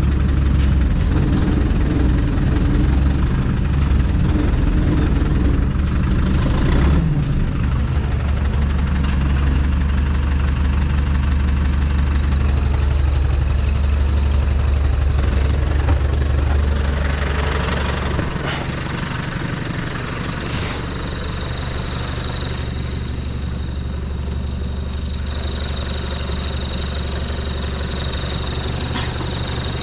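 The diesel engine of an LKT forestry skidder idling steadily. About 18 seconds in it settles a little lower and quieter, and a faint high whine joins it.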